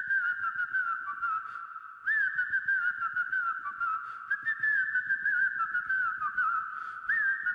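Music: a whistle-like melody played in short repeating phrases, each opening with an upward swoop followed by wavering notes, over faint light ticks of percussion, the opening of an electronic pop track.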